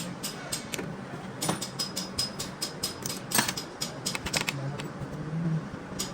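Irregular light metallic clicks and clinks of hand tools and small parts being handled during work on a tractor diesel pump, over a steady low hum.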